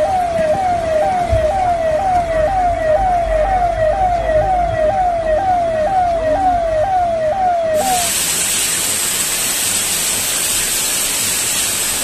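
An electronic siren sounds a falling tone that repeats about twice a second, over the noise of rushing floodwater, and stops about eight seconds in. A loud, even hiss cuts in abruptly just before the siren stops and lasts for the final four seconds.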